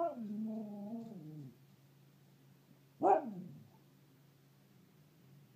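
Husky 'woo-wooing': a drawn-out, held howling call that drops in pitch and ends about a second and a half in, then a second short 'woo' about three seconds in that slides downward.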